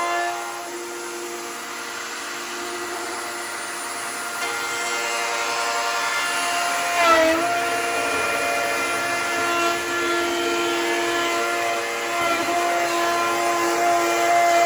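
Handheld electric power tool running steadily on a hickory tabletop, its motor pitch dipping briefly about seven seconds in, as if it were loaded harder, then recovering.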